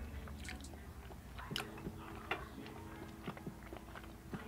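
Mouth sounds of someone chewing balut (boiled fertilised duck egg): soft, wet chewing with scattered small clicks.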